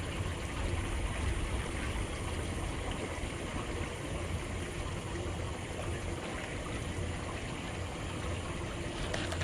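Steady rush of water pouring over a waterfall, an even noise with no breaks.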